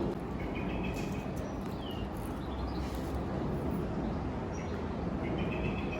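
Steady outdoor background noise with a few short, high bird chirps over it.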